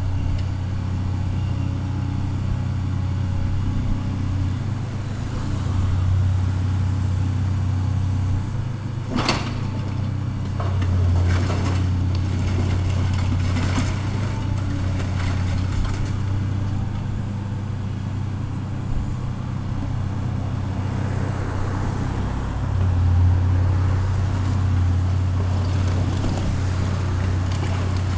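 Diesel engine of heavy demolition machinery running steadily, swelling and easing with the load, with a sharp crack about nine seconds in followed by a series of knocks and clatter.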